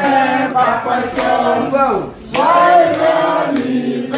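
A group of people singing together in chorus, several voices overlapping with no instruments clearly heard.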